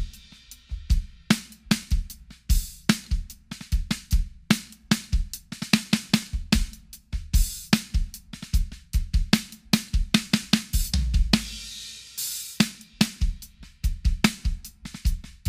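Drum-kit groove on a Sonor AQ2 14x6 maple snare drum in medium tuning with a nut shaker fixed on its head, so each snare hit carries a dry rattle of nut shells. Kick drum and hi-hat or cymbals keep time, with a couple of cymbal washes in the second half.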